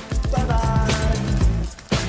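Background music with a steady beat and held melodic notes, dropping out briefly near the end.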